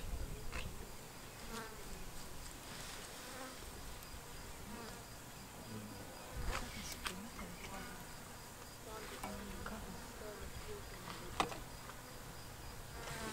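Flies buzzing around a wildebeest carcass, with a few sharp cracks as lionesses chew on it, the loudest near the end.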